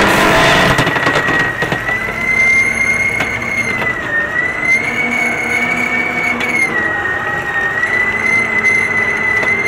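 Twin-engine Caterpillar scraper running while driving, with a loud high-pitched whine over the engine noise that wavers slightly, dipping in pitch briefly twice.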